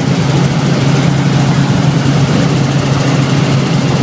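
Helicopter engine and rotor in steady flight, heard from inside the cabin as a loud, even drone.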